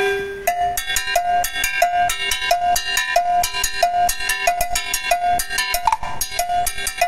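Timbales and cymbals played with sticks in a steady, fast rhythm. Sharp stick strokes come several times a second, and a ringing metallic drum tone recurs about three times a second.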